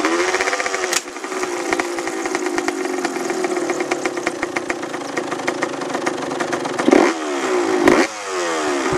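Yamaha YZ125 two-stroke dirt bike engine running at a fast, popping idle. It is revved sharply twice near the end, and each time it falls back to idle.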